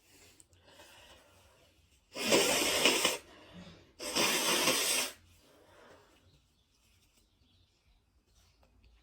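A person with a cold sneezing twice, about two seconds apart, after a soft breathy in-breath. Each sneeze is a loud, hissing burst lasting about a second.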